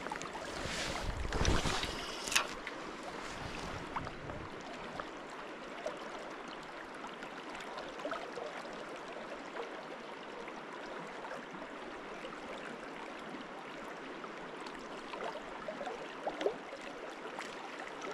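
Steady rush of river water, with a few louder bumps and a sharp knock in the first two or three seconds.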